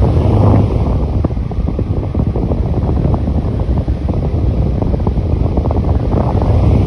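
Delta Gold electric fan running, its airflow buffeting the microphone with steady low wind noise and crackle.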